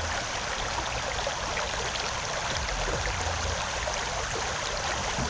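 Flowing river water, a steady rush of current.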